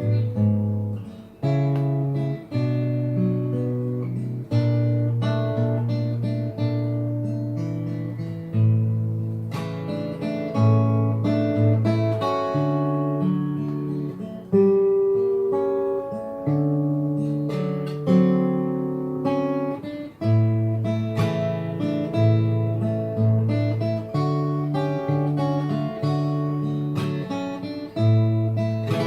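Yamaha L-12SN all-solid steel-string acoustic guitar played fingerstyle: a plucked melody over sustained bass notes.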